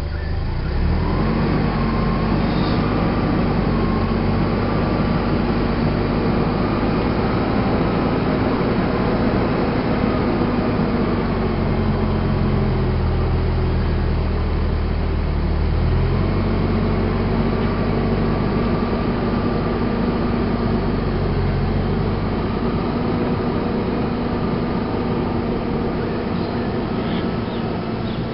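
A ute's engine running under load, towing on a snatch strap. It revs up about a second in, drops back for a few seconds around the middle, then revs up again and holds.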